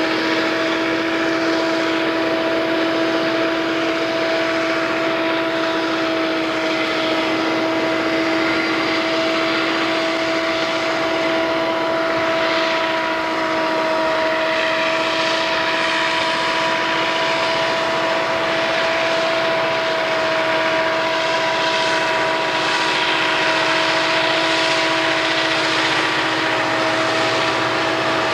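Diesel freight locomotives working hard upgrade at heavy throttle, a steady engine drone with a constant whine on top as the train comes closer.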